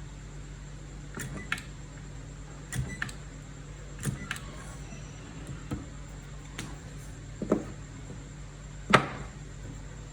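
Scattered light clicks and knocks of small hard objects being handled, about ten in all, the loudest near the end, over a steady low hum.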